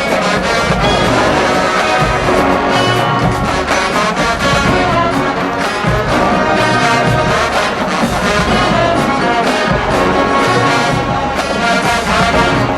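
HBCU marching band playing loudly, its brass section of trombones and trumpets carrying the tune in full, sustained chords.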